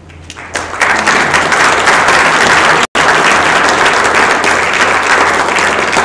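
Audience applauding, swelling over the first second into steady, loud clapping, with a split-second gap near the middle.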